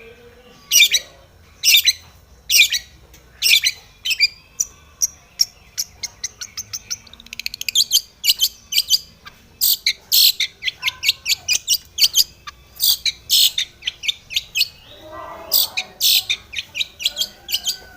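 Long-tailed shrike (cendet) singing, used as a lure to provoke other shrikes: loud, sharp, scratchy notes, spaced about a second apart at first, then running into quick series and a dense stretch of calls through the second half.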